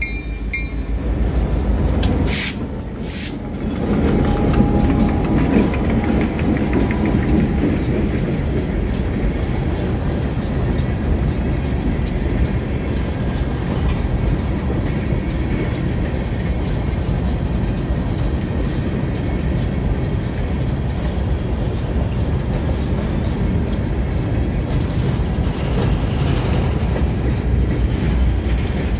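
Chicago, Fort Wayne & Eastern freight train rolling past: its EMD diesel locomotives go by first, then a string of tank cars and covered hoppers with a steady rumble and rapid clicking of wheels over the rail. Two sharp clacks sound about two and three seconds in.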